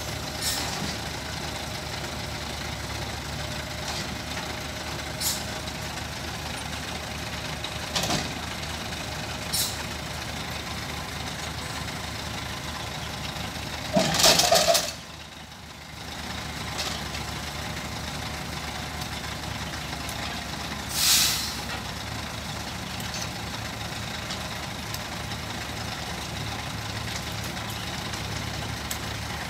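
Yanmar mini excavator's diesel engine running steadily, with a few short knocks and two loud hisses: a long one about halfway through, after which the engine sound dips for a second or two, and a shorter one about three-quarters through.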